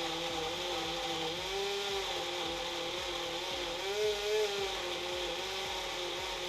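Wonderchef Nutri Blend personal blender's motor running steadily, blending hard beetroot pieces with milk. The motor's pitch wavers slightly as it works, rising briefly about a second and a half in and again about four seconds in.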